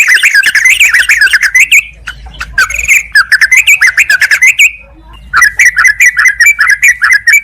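Yellow-vented bulbul (trucukan) giving loud, rapid, bubbly chattering calls in three bursts, with short pauses about two and five seconds in.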